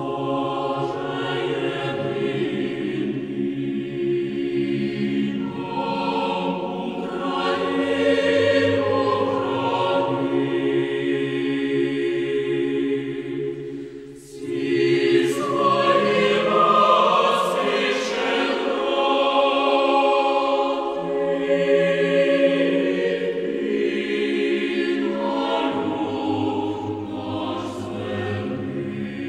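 A choir singing a slow piece in long, held chords, with a brief break about halfway through.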